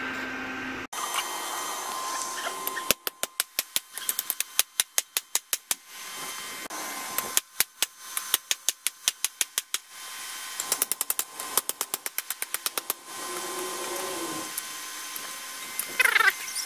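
Hand hammer striking red-hot 5160 high-carbon spring steel on a steel anvil block. The blows come in quick runs of several a second, three runs with short pauses between them.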